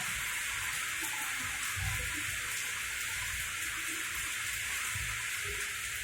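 Heavy rain pouring down in a steady hiss, with an irregular low rumble underneath.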